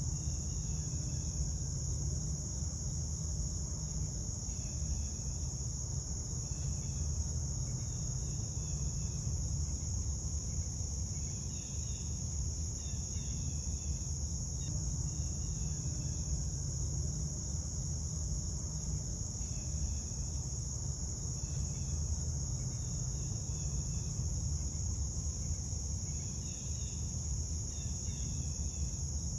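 Steady, high-pitched insect chorus trilling without pause, over a low rumble, with short bursts of lower chirping that come and go every few seconds.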